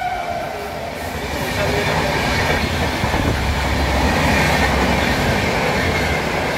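Running noise of a train heard from inside a sleeper-class passenger coach: a steady din of wheels on the rails over a low rumble, building slightly after the first second and then holding even.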